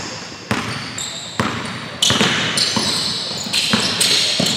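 A basketball being dribbled on a hardwood gym floor, about five bounces spaced roughly half a second to a second and a half apart, each ringing on in the hall. Sneakers squeak on the court between the bounces.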